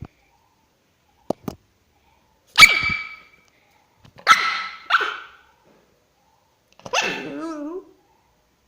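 A pet dog barking in annoyance: one loud bark, then two more in quick succession, then a longer cry that wavers up and down in pitch.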